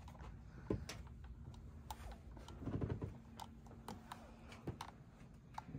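Faint, irregular clicks of typing on a computer keyboard and clicking a mouse, with a short low murmur about three seconds in.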